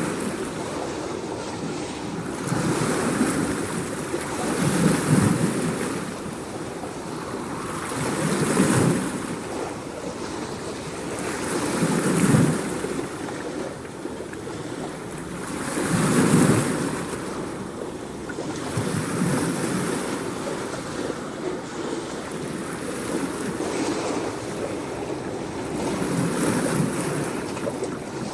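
Ocean waves washing in, each swell rising and falling away about every four seconds, with a steady rushing in between.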